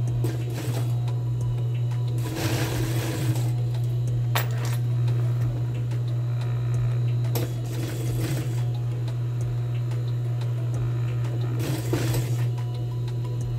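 Industrial sewing machine topstitching a skirt waistband in three short runs of stitching, each about a second long, over a steady low hum. A single sharp click comes about four seconds in.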